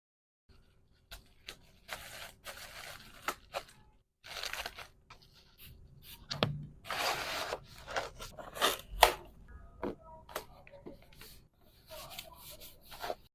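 Hands handling packaging materials: short bursts of rustling and crinkling with scattered sharp clicks and taps, stopping and starting irregularly.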